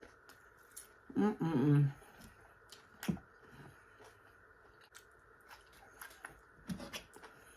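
A person chewing food with wet mouth clicks and smacks, with a brief voiced sound from the eater about a second in.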